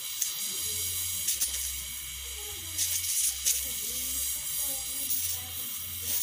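LPG-oxygen torch flame hissing steadily as it heats copper cable in a brick crucible, with a few brief louder surges.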